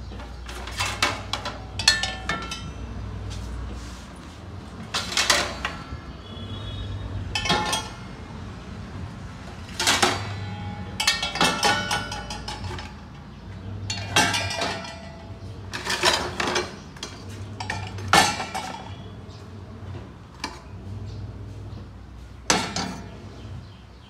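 Plates and other kitchen utensils clattering and clinking as they are set one after another into a dishwasher's lower rack. About a dozen separate clanks come at irregular intervals, some ringing briefly after the hit.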